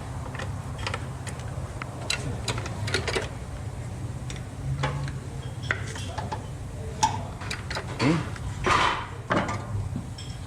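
Scattered sharp metallic clicks and clinks of hand tools, socket and bolts being handled during a transmission installation, over a steady low hum.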